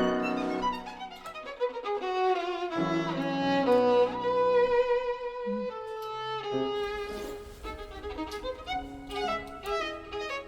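Background music: a solo violin playing a slow melody with vibrato over a soft accompaniment.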